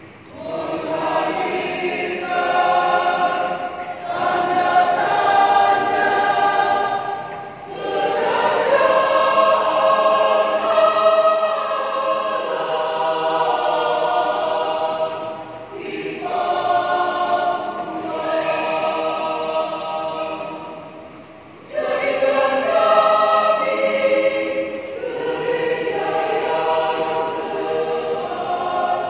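A large church choir singing together, in phrases broken by short pauses; after the last pause, a little past two-thirds through, the voices come back in suddenly and loudly.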